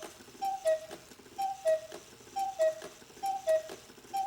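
Cuckoo clock's bellows-driven pipes sounding the two-note cuckoo call, a higher note falling to a lower one, about once a second, each call with a click from the mechanism. It is counting out seven o'clock while the hour hand is set to match the cuckoo.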